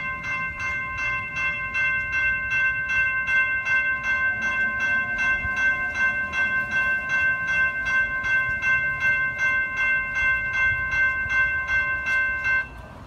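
General Signals Type 2 electronic railroad crossing bell ringing, a rapid, even ding at about three strikes a second, while the crossing gates come down. It cuts off suddenly near the end, once the gates are fully lowered.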